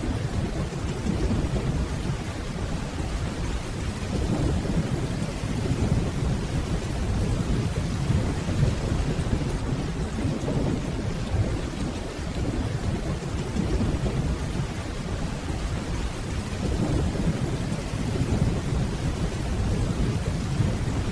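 Steady rainfall with a continuous low rumble of distant rolling thunder underneath, swelling and easing slightly.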